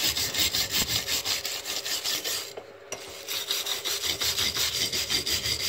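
Hand wire brush scrubbed back and forth over a metal dynamo end bracket held in a vice, cleaning the casting in place of sandblasting. Quick rasping strokes at about five a second, with a brief pause a little past halfway.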